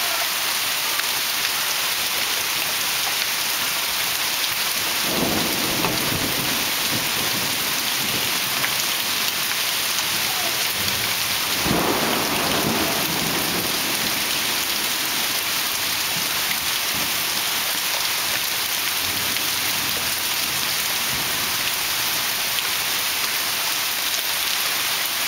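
Heavy rain falling steadily in a thunderstorm, with two low rolls of thunder, one about five seconds in and another about twelve seconds in.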